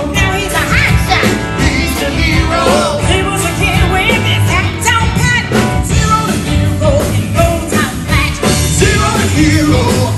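A woman singing into a microphone over a live band of electric guitar, drums and keyboards playing with a steady beat, heard loud through a concert sound system.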